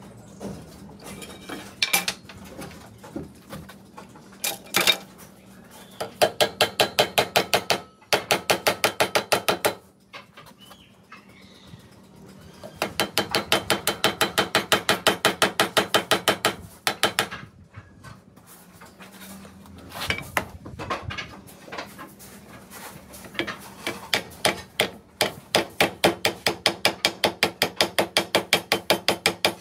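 Hammer rapidly tapping a steel nail into a wooden block, about seven or eight light strikes a second, in four runs of a few seconds each with pauses between, after a few single knocks.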